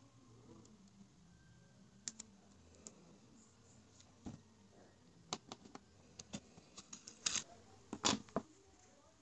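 Faint, scattered clicks and crinkles of clear cellophane tape being pressed and smoothed onto paper with the fingertips, then the taped paper being picked up and handled, the loudest crinkles coming about seven to eight and a half seconds in.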